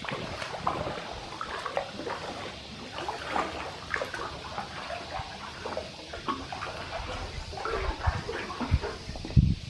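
Water sloshing and gurgling in an irregular patter, with a few low bumps near the end.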